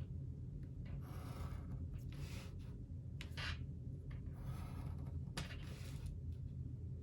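Pencil scratching across paper in a series of short strokes, drawing lines on cardstock.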